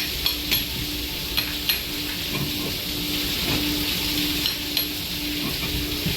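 Steady hissing with a low hum that pulses on and off about twice a second, and a few light metallic clinks, twice close together near the start and again about a second and a half in.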